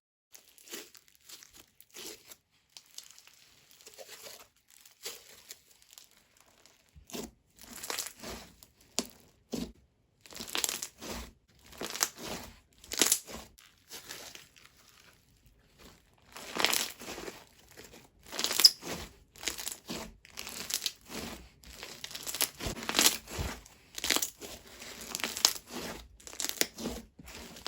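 Slime being squished and stretched by hand, making irregular crackly, crunchy popping sounds, sparse and quiet at first and growing denser and louder after about seven seconds.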